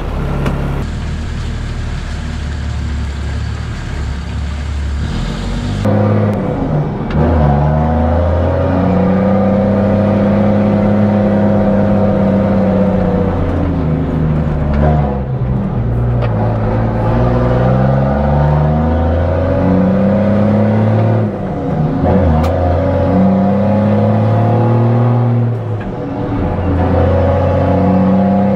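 A heavy truck engine running hard. It holds fairly steady at first, then from about six seconds in its pitch climbs and drops back again and again as it is revved.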